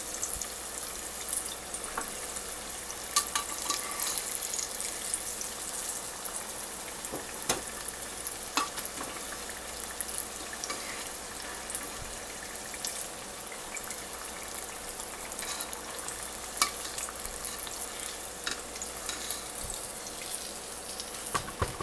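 Flour-dredged squash slices deep-frying in hot oil: a steady sizzle with frequent crackles and pops.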